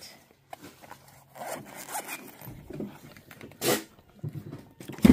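Zipper of a small hard-shell zippered case being pulled open around its edge: a few short scratchy pulls, then one longer, louder pull a little before the end.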